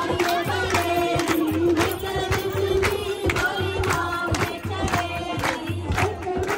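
Singing with drum accompaniment: a voice holds long, slowly bending notes over a quick, even drum rhythm with a repeating low beat.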